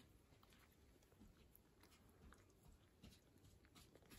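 Faint, wet licking clicks of a calico cat grooming itself, licking its front paw and washing its face, in a quick irregular run.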